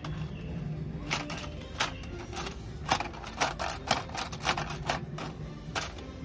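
A quick, irregular series of taps and clicks as a child's hand knocks against boxed monster-truck toys and their plastic display windows on a store shelf.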